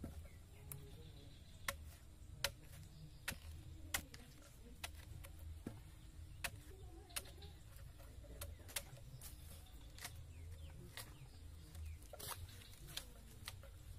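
Machete cutting and chopping a banana corm on a wooden block: a run of sharp knocks at irregular intervals, roughly one or two a second.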